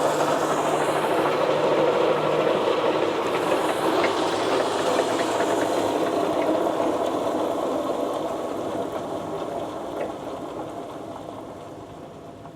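Brown & Sharpe No. 2 screw machine lathe running, a dense steady whir of spindle and gearing with a couple of sharp clicks, dying away steadily over the last several seconds.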